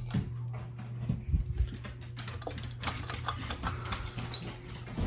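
A dog moving about with light clicking and jingling, as of collar tags and claws, over a steady low hum.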